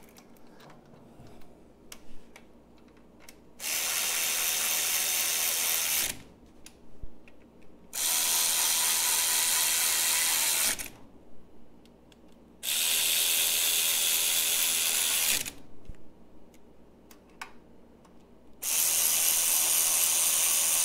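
Cordless electric ratchet running in four bursts of a couple of seconds each, driving in the skid-plate bolts.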